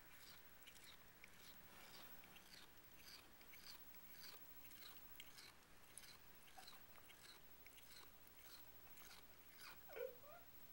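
A cat making a faint, rhythmic rasping noise like sandpaper, short scraping strokes about twice a second. About ten seconds in, a brief louder sound with a short swoop in pitch.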